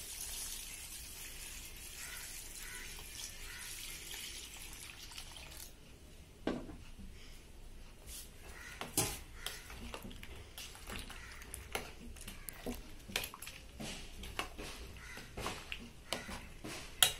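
Thin custard, milk cooked with custard powder and sugar, poured in a steady splashing stream into a stainless steel bowl of chopped fruit for about five seconds. Then the fruit and custard are stirred, with irregular clicks and scrapes against the steel bowl.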